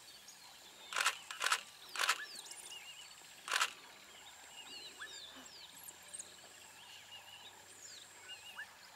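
Bush ambience: scattered short high chirps over a steady high-pitched insect buzz. Four sharp clicks sound in the first four seconds, two of them close together.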